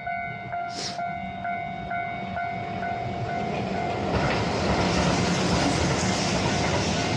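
Level crossing warning bell dinging a little over twice a second. From about four seconds in, the rising rumble of a passing train drowns it out.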